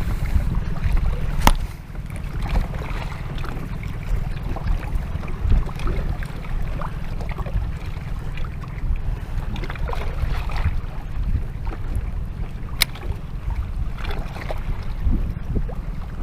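Strong wind buffeting the microphone on open water, a steady low rumble that flutters up and down, with two sharp clicks about a second and a half in and again near the end.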